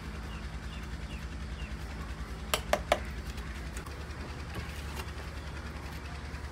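Three quick, sharp knocks of bricks being set in place, brick against brick, about two and a half seconds in, over a low steady hum.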